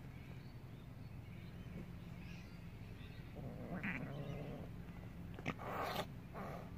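Cats just after mating: a short pitched yowl about three and a half seconds in, then sharp hissing bursts near the end.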